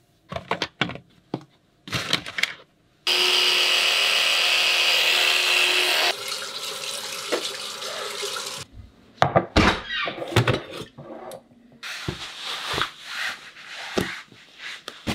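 Small clicks and knocks, then a few seconds of loud steady rushing from a bathroom tap running into the sink, which stops suddenly. After it come more handling knocks and rustling as winter boots are laced.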